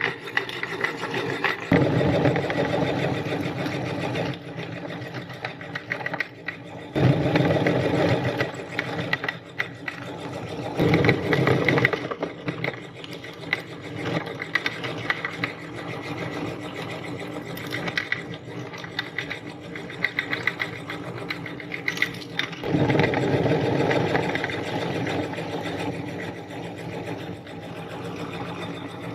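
Electric meat grinder running, its motor whirring with dense crackling and clicking as material is forced through. It grows louder in several stretches of a couple of seconds each.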